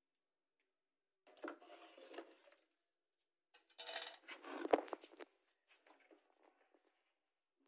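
Faint rustling and clicking of handling in two short bursts, the second louder and ending in a sharp click, followed by a few scattered light ticks.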